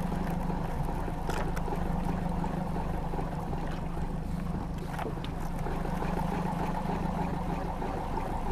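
Small outboard motor running steadily at idle on a small boat, with a few faint clicks.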